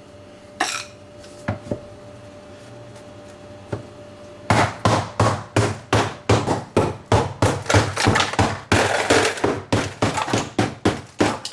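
A few scattered knocks, then from about four and a half seconds in a fast run of hard knocks, about three a second, as the layer of ice built up in the bottom of the freezer is struck and chipped at.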